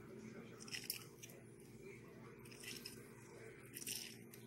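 Faint wet squishing and scraping as a lemon half is pressed and twisted on a plastic hand reamer, with about three short strokes standing out.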